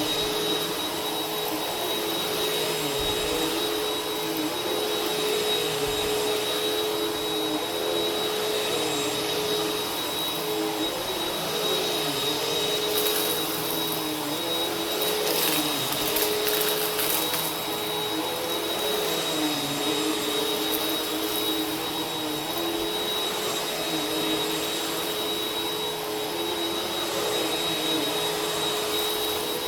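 Vacuum cleaner motor running steadily, a continuous rushing hiss with a high whine and a lower hum that wavers slightly. The hiss grows brighter for a few seconds about halfway through.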